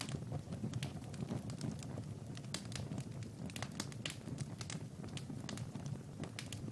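Wood fire crackling: many sharp, irregular pops and snaps over a low, steady rush of flames.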